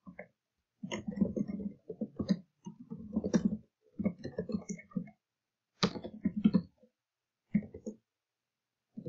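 Computer keyboard typing in about seven short bursts of keystrokes, separated by brief pauses, as a sentence is typed word by word.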